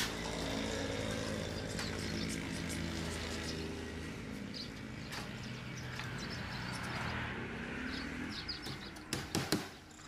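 An engine running steadily in the background, its hum weakening after about four seconds. Near the end come a few sharp hammer taps on the wooden cage frame.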